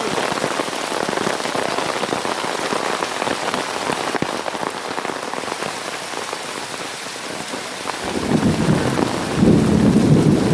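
Hail falling: a dense hiss of many small impacts with sharper single ticks among them. From about eight seconds in, a loud low rumble rises beneath it and grows stronger near the end.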